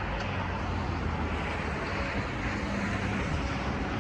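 Steady road traffic noise, with a faint steady tone above it that fades and comes back.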